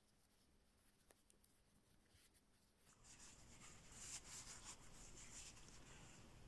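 Near silence, then faint rustling from about three seconds in: fingers rubbing and smoothing crocheted cotton fabric against a crocheted doll.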